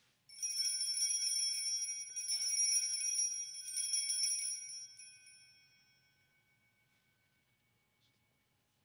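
Altar bells, a cluster of small bells, shaken in two rounds of bright jingling of about two seconds each, then ringing away over a couple of seconds. The ringing marks the elevation of the consecrated host.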